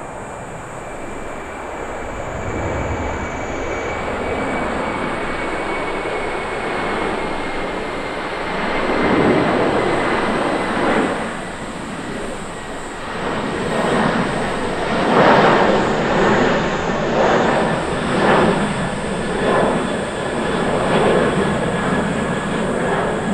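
Airbus A330-300's twin General Electric CF6-80E1 turbofans running at takeoff-climb power as it climbs out: a steady jet roar with a thin high whine that slowly falls in pitch, growing louder and from about nine seconds in swelling and fading in irregular waves.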